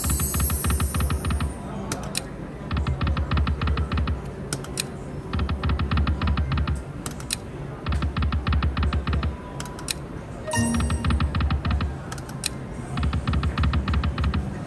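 Video slot machine spinning its reels six times in a row: each spin is about a second and a half of rapid, even clicking ticks over a low hum, followed by a short pause before the next spin.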